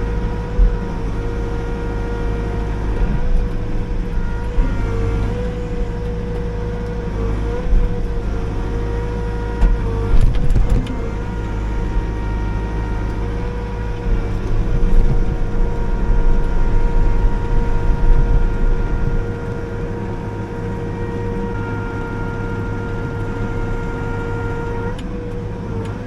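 Liugong 9051F mini excavator's diesel engine running steadily with a constant whine, growing louder for a few seconds around the middle as the machine works.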